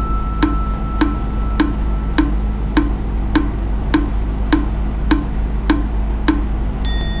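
Wood-block ticking sound effect marking a pause to think, about two ticks a second, over a steady low hum. A bright chime sounds near the end.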